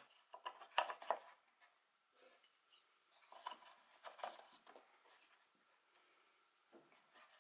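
Faint scattered clicks and light scrapes of small parts being handled, with two sharper clicks about a second in.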